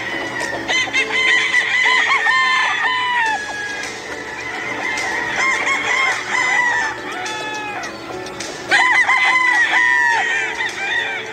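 Several roosters crowing over one another, with clucking between the crows. The crowing comes in three loud clusters, about a second in, around five seconds, and just before the end.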